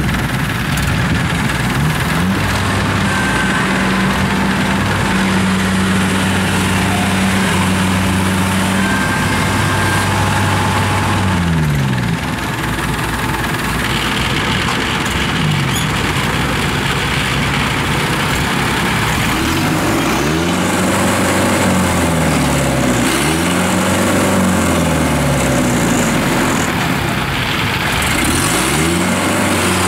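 Engine of a small tracked rice-hauling carrier running, steady for about the first ten seconds, then revved up and down again and again as the machine churns through deep mud.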